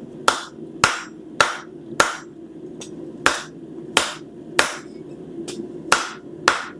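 Blacksmith's hammer striking a hot stainless steel bar on the anvil, about ten blows at a steady pace with a short pause midway, each ringing briefly: straightening the freshly twisted knife handle. A steady low hum runs underneath.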